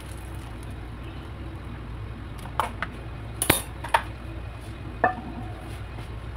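A few sharp clinks and knocks of metal kitchenware, about five in the second half, the loudest about three and a half seconds in: metal tongs being put down and a frying pan being lifted off a gas stove's burner grate. A steady low hum runs underneath.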